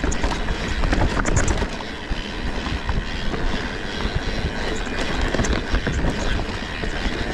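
Mountain bike rolling down a rough dirt trail: a steady rumble of tyres and wind on the microphone, with scattered clicks and rattles from the bike over roots and rocks.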